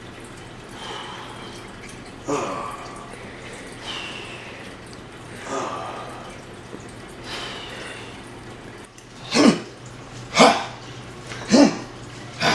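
A person's breathing and nasal noises: soft breaths about every second and a half, then three loud, sharp snort-like exhalations near the end.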